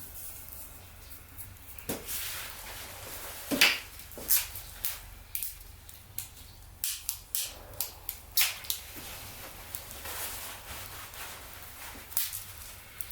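Wood fire burning in a campfire stand, crackling with sharp irregular pops, the loudest about three and a half seconds in.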